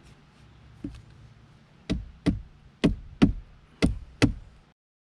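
Six sharp knocks in three quick pairs, about a second between pairs: a bracket being knocked into place in a back-to-back boat seat base.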